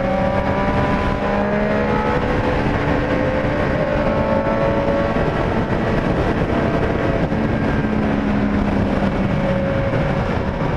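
Triumph Street Triple 765 S motorcycle's three-cylinder engine pulling steadily at highway speed, its pitch climbing slowly over the first few seconds and then holding, under heavy wind and road noise.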